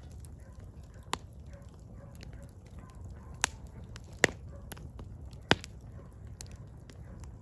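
Burning firewood crackling: four sharp pops, the loudest a little after four seconds and at about five and a half, among lighter ticks over a low steady rumble.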